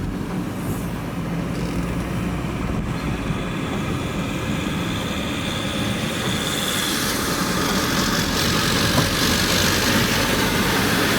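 Van driving, heard from inside the cab: steady engine and road noise, growing gradually louder and hissier from about halfway through.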